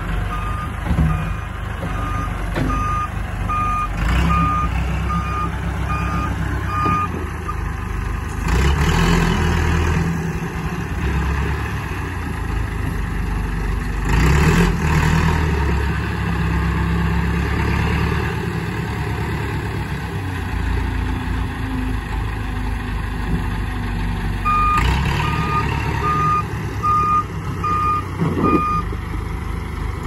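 Massey Ferguson tractor's diesel engine running as it works a front-loader log grapple, getting louder twice for a second or so. A reversing alarm beeps about twice a second for several seconds near the start and again near the end.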